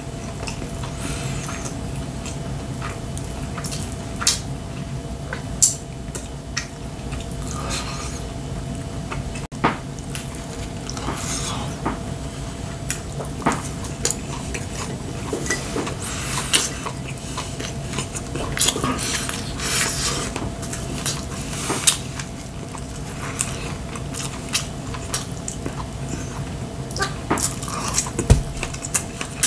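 A man eating at close range: chewing and mouth sounds, with frequent irregular light clicks of wooden chopsticks against ceramic plates and bowls, over a steady low hum.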